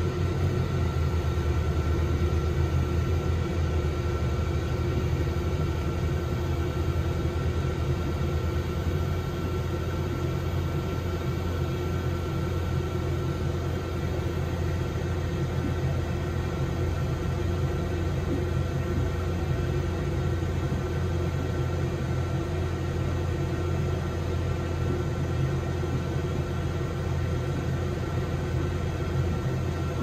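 12 V, 12,000 BTU DC marine air conditioner running: a steady low hum from the compressor and blower, with a faint, thin high whine over it.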